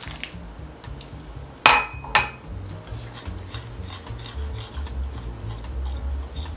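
Two sharp glass clinks about two seconds in, then a fork stirring and scraping steadily against a glass mixing bowl as ice water is worked into flour-and-butter crumbs for pie-crust dough.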